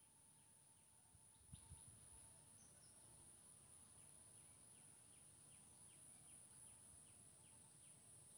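Near silence: a faint steady high hiss with soft, evenly repeated chirps, about two to three a second, and a couple of faint taps about one and a half seconds in.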